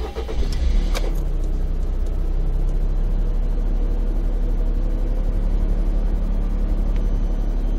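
Car engine running, heard from inside the cabin as a steady low rumble, with a couple of clicks in the first second.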